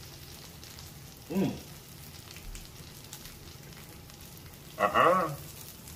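Sausages and meat sizzling steadily on the domed grill plate of a tabletop hotpot-and-grill pan. A short hummed "mmm" comes about a second and a half in, and a louder voiced exclamation near the end.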